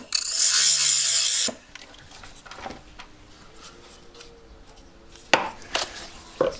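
A hand file drawn across the jaw tips of a pair of jeweller's pliers, one long rasping stroke of about a second and a half as the tips are dressed. Then a quieter stretch of light clicks and handling, and a few short scratchy scrapes near the end.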